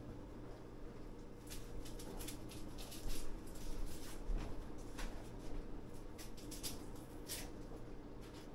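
Onion being prepared by hand: light, irregular crackles and scrapes, busiest in the middle of the stretch, over a steady low hum.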